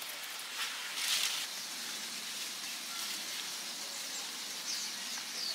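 Brief rustling over a steady outdoor hiss, loudest about a second in, with a few faint bird chirps near the end.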